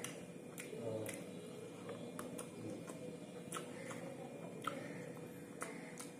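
A person eating rice and beef curry by hand: chewing and lip smacking, with a string of short, sharp, irregular wet clicks.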